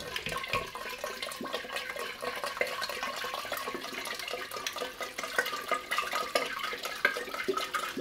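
Kitchen tap running water through the mesh sieve lid into a glass sprouting jar, filling it while the jar is swirled to rinse the seeds inside. The water rush is steady.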